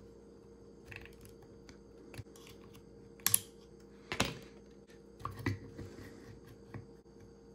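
Scattered small clicks and metallic taps from handling the small metal brush-holder parts of a disassembled power window motor, with the two loudest clicks about three and four seconds in.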